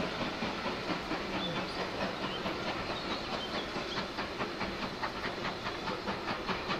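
Steam locomotive running: a steady hiss with a quick, regular beat that grows clearer about four seconds in.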